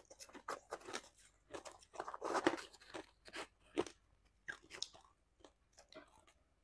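Shaved ice with passion fruit pulp being chewed and crunched in the mouth, close to a clip-on microphone: a quick run of crisp crunches, thickest and loudest about two and a half seconds in, thinning out toward the end.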